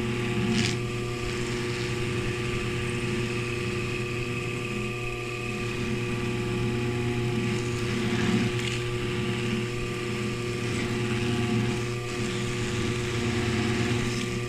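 Dental polishing lathe motor running steadily, spinning a cloth rag wheel that brushes against an acrylic denture as it is polished. The sound swells briefly a couple of times.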